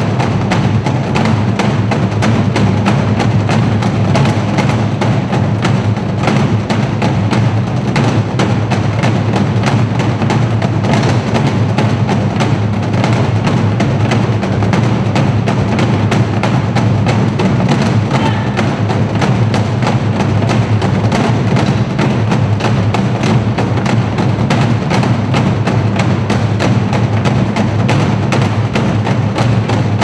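Ensemble of Korean barrel drums beaten with sticks in a fast, dense, unbroken rhythm, with sharp clicking stick strokes among the deep drum hits.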